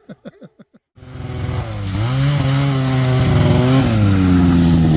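A few short voice sounds, then a snowmobile engine comes in abruptly about a second in and runs loudly, its pitch dipping and rising as the throttle changes.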